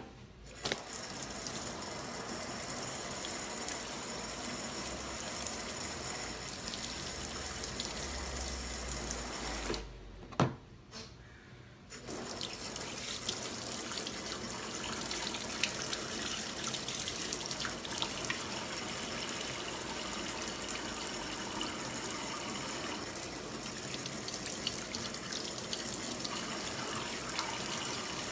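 DeLonghi EC702 pump espresso machine running with a steady rushing hiss of water. It stops about ten seconds in, a click follows, and about two seconds later it starts again.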